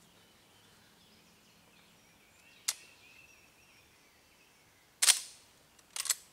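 Sharp metallic clicks and clacks of a shotgun's action being worked by hand to clear its shells. There is a light click about two and a half seconds in, a louder clack about five seconds in, and a quick double click near the end. Faint birdsong runs behind.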